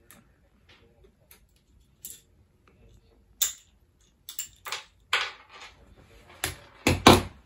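Skateboard truck and wheel being handled over a deck: scattered small clicks and knocks, with a cluster of louder knocks near the end.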